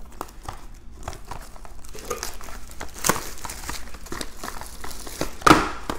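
Plastic shrink wrap crinkling and tearing as it is pulled off a bundle of cardboard toothpaste boxes. Scattered crackles run throughout, with sharper ones about three seconds in and near the end.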